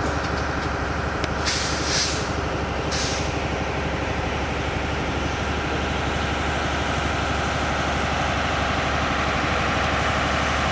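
Intercity passenger train running past, with a steady rumble and fast clatter of its wheels on the rails. There are two short hisses, about one and a half seconds in and again about three seconds in.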